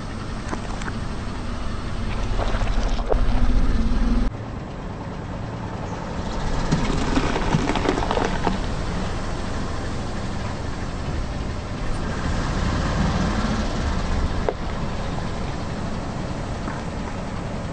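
Car tyre slowly rolling over bell peppers on asphalt, over the low rumble of the car's engine and tyres. Crackling of the peppers splitting and flattening under the tyre comes about seven to eight seconds in, with a few single snaps elsewhere.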